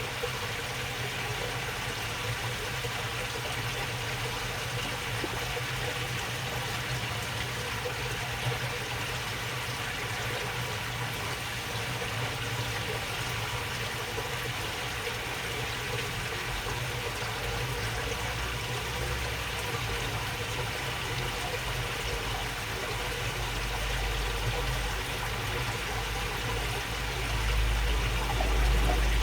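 Shallow water babbling steadily along a narrow channel, under a steady low hum; a low rumble swells near the end.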